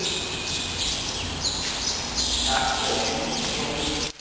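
Indistinct background chatter of many voices in a large hall, over a steady low hum.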